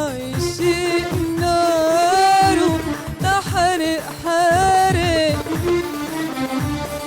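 A woman singing a melody with wavering, ornamented notes over instrumental accompaniment with a steady drum beat.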